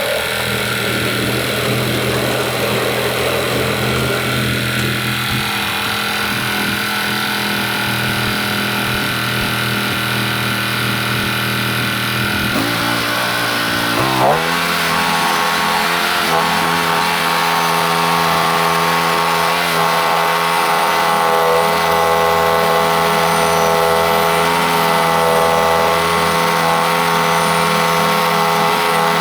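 Norwood MX34 portable bandsaw mill running, its engine and band blade cutting through a knotty pine log. About halfway through the engine note dips and then comes back up, and the mill then runs steady again.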